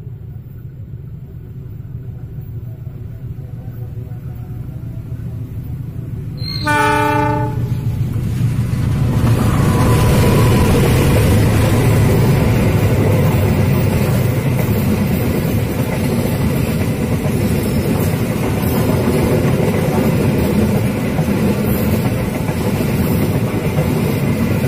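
Taksaka passenger train, hauled by a diesel locomotive, approaching with a growing rumble. It sounds its horn once, for about a second, some seven seconds in, then passes close by with a loud, steady rumble of wheels on rail.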